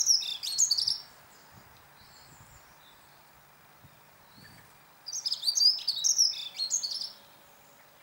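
Dunnock (hedge accentor) singing: a fast, short, high warble with little variation, given twice. The first phrase ends about a second in, and the second starts about five seconds in and lasts about two seconds.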